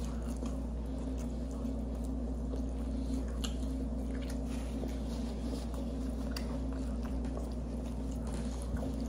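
Chewing and soft mouth sounds from people eating sub sandwiches, a few faint clicks scattered through, over a steady low hum.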